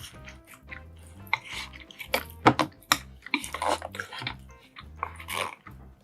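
Close-miked eating of a meal that includes a kimchi stew: wet slurps and chewing with sharp clicks, over background music with a steady low beat.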